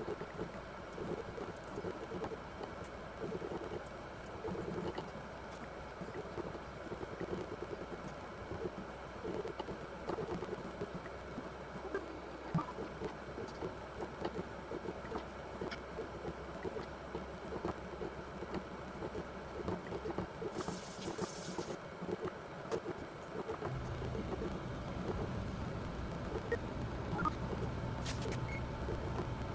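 Motors of a benchtop robotic blacksmithing machine running through its automatic forming cycle. A steady low hum stops about twenty seconds in, and a brief hiss follows. A few seconds later a different, higher hum starts.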